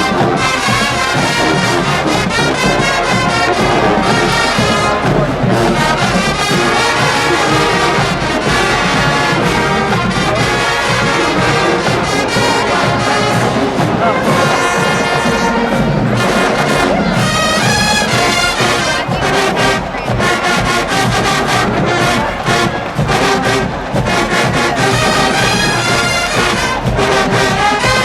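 HBCU marching band playing: massed trombones and trumpets over drumline percussion, with sharp drum hits through the second half.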